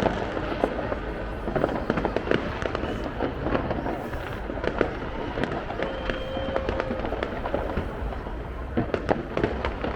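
Fireworks display: a steady stream of bangs and crackling pops in quick, irregular succession, with a brief held whistle-like tone about six seconds in.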